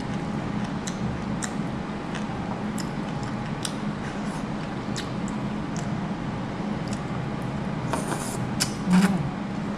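A person eating braised pork hock: scattered small clicks and smacks of chewing and utensils, with a louder cluster of clicks about eight to nine seconds in. A steady low hum runs underneath.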